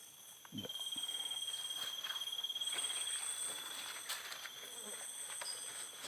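Insects chirping in forest undergrowth: several high, steady trills, one pulsing loudly from about half a second in, with a soft thump at that moment and a few faint clicks.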